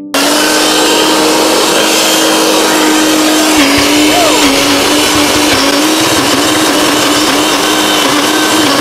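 Small electric blender running at full speed, grinding red chillies, garlic and lemongrass into a coarse paste. Its motor hum drops a little in pitch a few seconds in and wavers toward the end.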